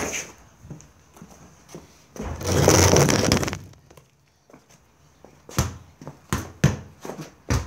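Football being kicked and bounced: a thud at the start, a scuffing noise lasting about a second from two seconds in, a short lull, then a quick run of thuds near the end as the ball is played again.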